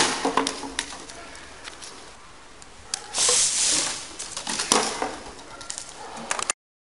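Ethanol-fuelled PET-bottle rocket firing: about three seconds in, a loud whoosh of about a second as the alcohol–air mix in the bottle burns and blows out through the small hole in the cap. Sharp knocks at the start and just under five seconds in, from bottles striking the asphalt.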